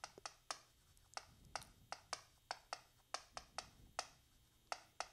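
Chalk tapping and clicking against a chalkboard while writing: a faint, quick, irregular series of sharp taps, about three or four a second.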